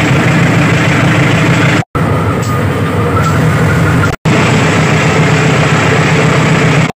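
Recorded sound effect of a CC203 diesel locomotive engine running steadily at a throttle step-up, played back as previews of clips labelled "up 5-6" and "up 6-7". It cuts off abruptly twice, about two seconds and four seconds in, as the preview switches from one clip to the next.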